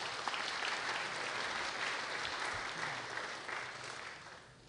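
A seated audience of a few dozen people applauding, the clapping dying away near the end.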